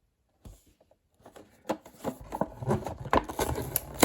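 Toy monster truck packaging being handled and opened by hand: irregular rustling and clicks that start about halfway through and grow busier.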